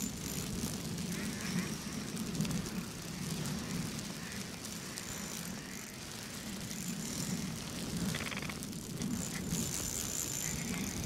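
Spinning reel being cranked with a hooked trout on the line, its gears whirring in an uneven, pulsing rhythm as the handle turns.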